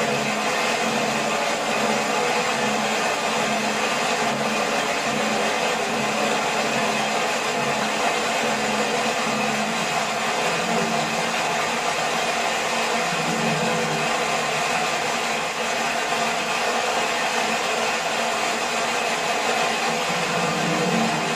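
Waterfall's falling water rushing in a loud, unbroken roar of noise.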